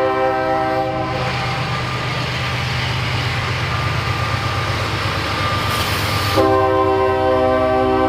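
Diesel freight locomotive's air horn blowing a multi-note chord over the low rumble of the engine. The horn breaks off about a second in, leaving the rushing noise of the passing train, then sounds again about six seconds in, just after a short hiss.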